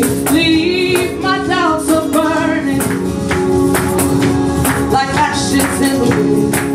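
Live gospel worship music: a woman singing into a microphone over steady held chords and a repeating percussive beat.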